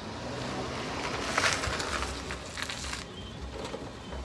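A small Toyota sedan driving up close and pulling in to park, its tyres and engine rising to a peak about a second and a half in and then easing off. Faint bird chirps come in near the end.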